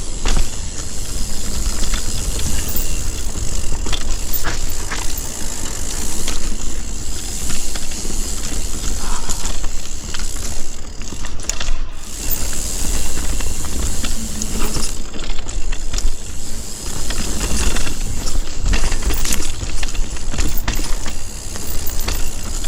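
Mountain bike descending a rough, rocky dirt trail: tyres rolling and skidding over dirt and stones, the chain and frame rattling with many sharp clicks over the bumps, under a steady rush of air.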